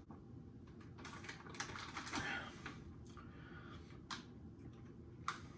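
Faint crinkling and small clicks of a plastic MRE beverage bag being drunk from and then handled, with sharp single clicks a little after the middle and near the end.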